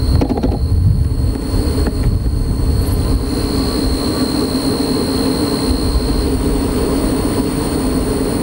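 Airbus A380's four jet engines at takeoff thrust during the takeoff roll: a loud, steady roar with a high whine held over it.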